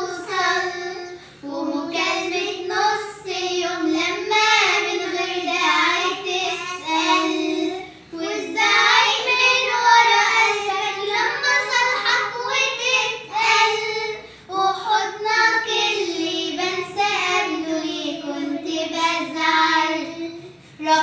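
A child's voice singing a melody in long phrases, with short breaths between them.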